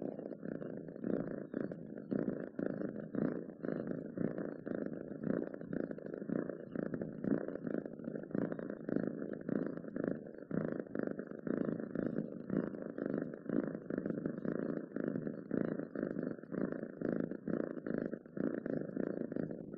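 Domestic cat purring: a steady, continuous purr with no break.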